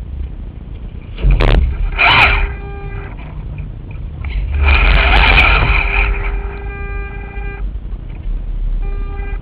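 Gusty wind buffeting the microphone of a camera mounted on an RC sailing yacht, with louder rushes about a second and a half in and again around five seconds in. A steady pitched hum comes and goes in short stretches, the longest ending a little past seven and a half seconds.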